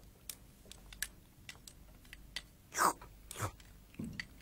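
Noodles being slurped hurriedly from a bowl, with light clicks of chopsticks against the bowl. There are two loud slurps about three seconds in.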